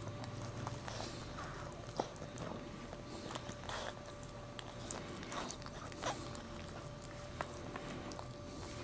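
Maltese mother dog licking her newborn puppy clean, irregular wet licks and mouth smacks, over a faint steady hum.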